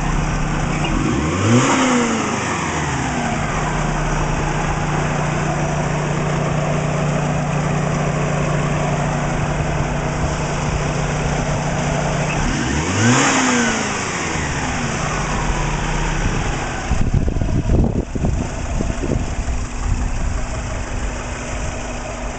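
Warmed-up car engine idling steadily with two quick throttle blips that rise and fall in pitch, about a second and a half in and again about thirteen seconds in. The ticking heard is valvetrain and injector noise, and the suspected piston slap, a low knock, is no longer heard. About seventeen seconds in the steady hum gives way to uneven knocks and rustling.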